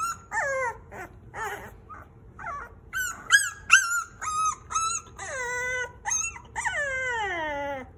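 Young bottle-fed puppies whimpering and crying: a string of short cries, then two longer wails near the end, the last one falling steadily in pitch.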